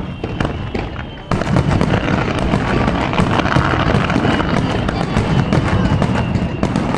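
Starmine fireworks barrage: separate booms and pops at first, then about a second in a sudden, dense, continuous volley of bangs and crackling.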